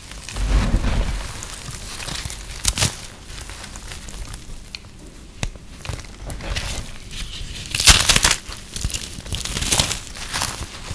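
Brittle, foamy microwave-puffed soap crunching and crumbling in the hands as it is broken apart, in irregular crackles with a few louder crunches; the loudest comes about eight seconds in.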